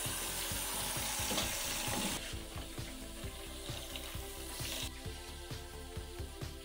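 Water running from a tap into a stainless steel sink, a steady hiss that cuts off about three quarters of the way through, over background music with a steady beat.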